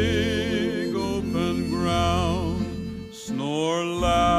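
Cowboy-song music without words: a melody with wide vibrato over sustained accompaniment, briefly dropping away about three seconds in before a rising phrase comes back.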